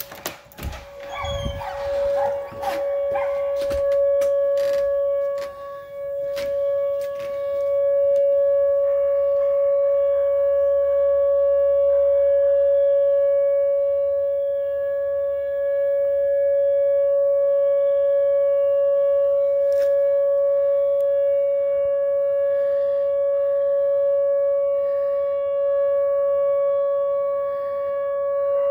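Nuclear power plant warning siren sounding one steady held tone during a test, swelling gently in level. In the first few seconds, clicks and knocks of a door being opened, after which the siren comes through much louder.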